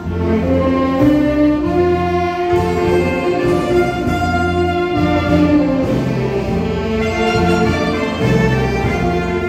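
Instrumental music: a sustained, string-like melody over a steady bass line.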